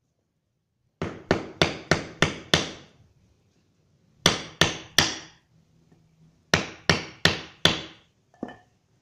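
Claw hammer striking metal to drive needle bearings into a Honda CB150R Pro-Link suspension linkage. There are thirteen sharp, ringing blows in three quick runs of six, three and four, about three a second, then a light clink near the end.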